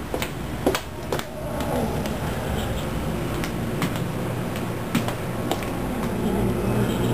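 A house cat's low, steady growl, building over the last couple of seconds: an angry cat guarding a green bean. Scattered sharp clicks and knocks come through the first half.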